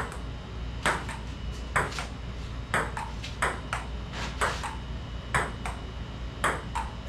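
Table tennis rally: a ping pong ball clicking off the paddles and bouncing on the table, the sharp ticks coming about twice a second, often in close pairs of bounce and hit.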